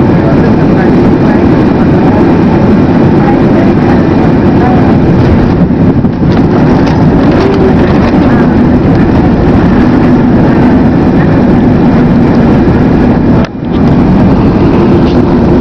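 Loud, steady roar of a Boeing 767-300's engines and rushing air heard inside the passenger cabin during the landing. The level dips for a moment about 13 seconds in.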